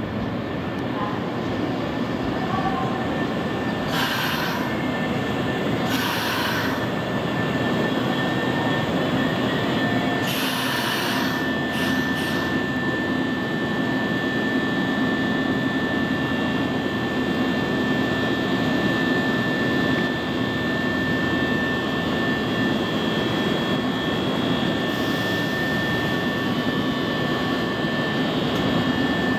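Nankai limited express Southern electric train pulling in along a station platform and coming to a stop, with a steady running hum. There are several short hissing bursts between about four and twelve seconds in, then a steady high whine as the train stands.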